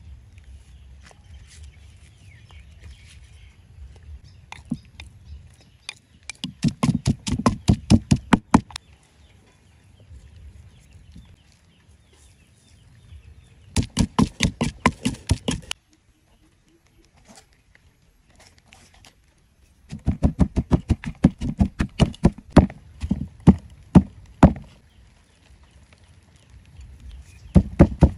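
Wooden pestle pounding ingredients in a mortar: quick runs of sharp knocks, several strokes a second, each run lasting a few seconds, with pauses and light handling noise between them.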